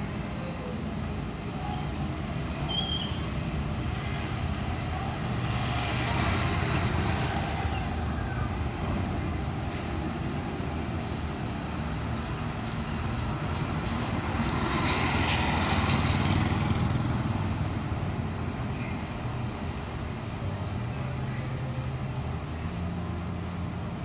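Road traffic: a steady low rumble, with vehicles passing about six seconds in and again, louder, about fifteen seconds in. In the first few seconds there are a few short, high chirps from sparrows.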